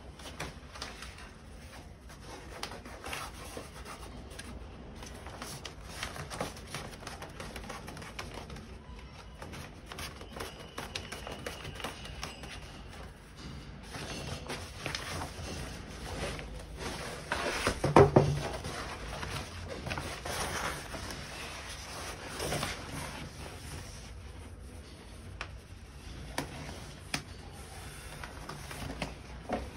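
Scattered rustling and small clicks of a black self-adhesive wallpaper sheet being handled and cut, with one louder short burst about eighteen seconds in.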